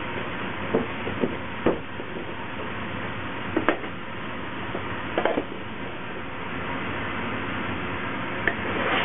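Several light knocks and clatters as a wooden transfer board and canvas couche are handled over perforated metal baguette trays while shaped baguettes are loaded, over steady background noise.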